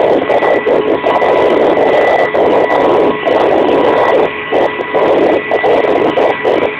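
Kamov Ka-26 coaxial helicopter heard from inside the cabin in flight: its two radial piston engines and rotors running loud and steady, with a constant high whine over the noise.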